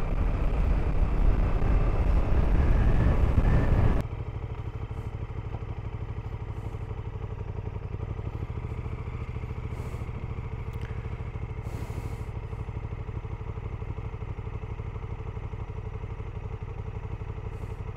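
KTM adventure motorcycle on the move, with loud wind and road noise over the engine, which cuts off suddenly about four seconds in. After that the engine idles steadily and quietly as the bike waits on the road.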